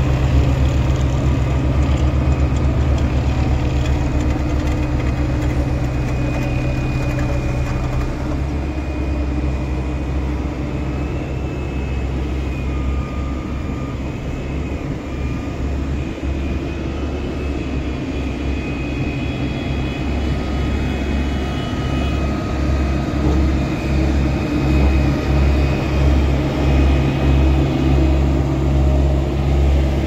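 Diesel engine of a Hamm HD 99 tandem road roller running steadily up close while it compacts fresh asphalt, with other paving machinery running alongside. After about eight seconds the low drone turns uneven, and in the last several seconds it pulses about twice a second.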